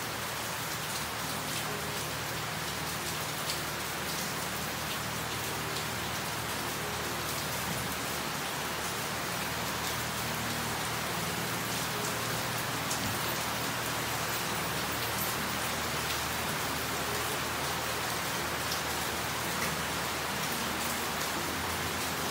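Steady rain falling, from a tropical depression: an even hiss with scattered sharper taps from individual drops.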